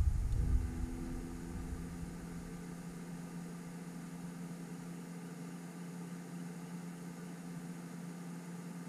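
A steady low motor hum, with a deep rumble that dies away in the first second.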